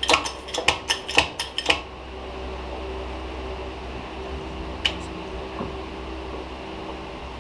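A quick, irregular run of light metal-on-metal clicks for about the first two seconds, then a steady workshop hum with a single click near the five-second mark.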